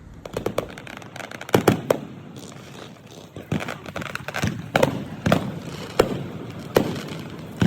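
Firecrackers going off: a series of sharp bangs at irregular intervals, roughly one every half second to second, over a steady crackling hiss.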